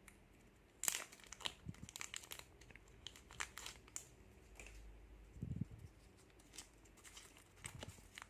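Plastic snack wrapper crinkling and tearing as it is pulled open by hand, in scattered crackles; the packet is slippery and hard to get open.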